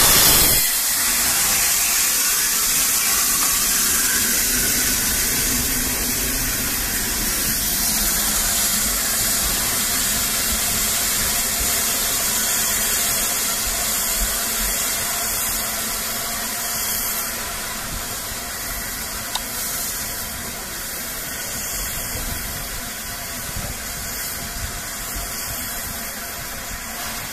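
Peppercorn A1 Pacific steam locomotive Tornado hissing steam as it runs slowly with its train, with a low rumble beneath. The sound is loudest at first and fades slowly as the engine draws away.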